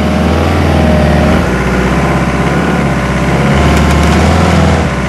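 Pickup truck engine running as the truck drives over rough ground, its note rising and falling a little.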